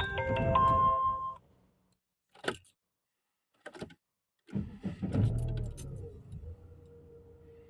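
VW Passat B5 start sequence. A loud sound with overlapping steady tones stops about a second and a half in, and two sharp clicks follow. About four and a half seconds in, the engine cranks briefly, catches and settles to a quiet idle with a faint steady tone. The uploader puts this hard starting down to a failed coolant temperature sensor.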